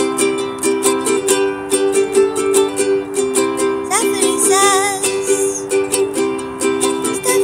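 Ukulele strummed in a steady, repeating chord pattern, with a short high sung note that glides up and wavers about four seconds in.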